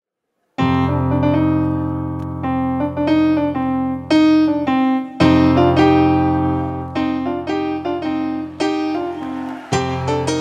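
Solo piano music beginning about half a second in: a melody of single notes over held low chords, with new bass chords struck twice.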